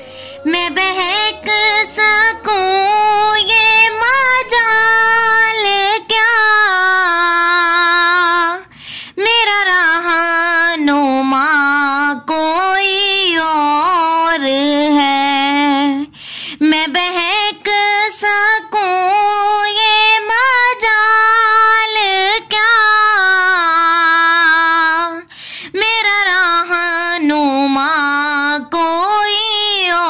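A naat sung by a single high voice in long, wavering melodic phrases, with short breaths between lines. Faint low backing fades out about six seconds in.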